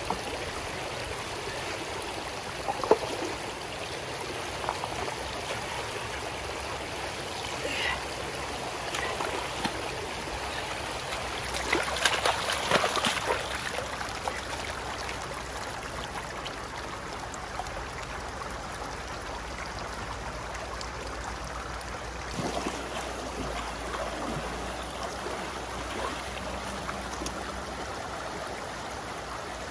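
Shallow stream running over rocks, a steady rush of water. A few brief knocks come about three seconds in, and a louder burst of splashing and scuffing about twelve to thirteen seconds in.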